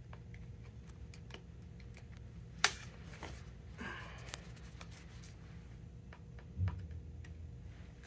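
Plastic grommets and a tennis racket frame being handled while an awl works grommets into the frame's holes: scattered light clicks and taps, with one sharper click a little under 3 s in and a soft thump about two thirds through.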